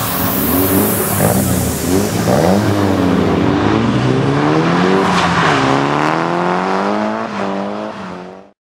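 Nissan 350Z's V6 engine revving up and down repeatedly as the car drifts, with tyre and road noise, cutting off near the end.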